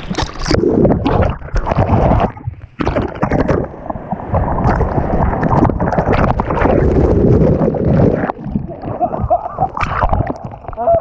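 Seawater sloshing and a wave breaking over a waterproof action camera held at the surface, with loud rushing and gurgling as the camera is tumbled through white water and dipped under. The rushing drops away briefly between two and three seconds in.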